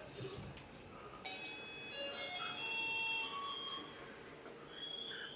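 Cockatiel whistling a run of clear held notes at changing pitches, loudest about three seconds in, with another short whistle near the end.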